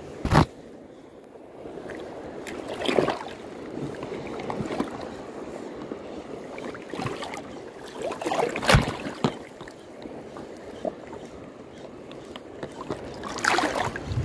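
Shallow sea water washing and splashing at a reef shore, with wind on the microphone and a few sudden sharp knocks, the sharpest about half a second and about nine seconds in.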